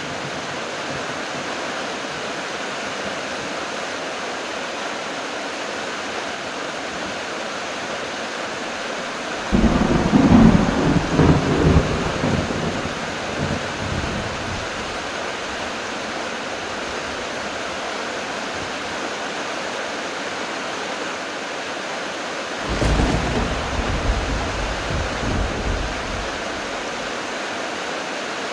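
Heavy rain falling steadily, with two rolls of thunder: a loud one about a third of the way in that rumbles on for about four seconds, and a weaker one about three quarters of the way through that rumbles for about three seconds.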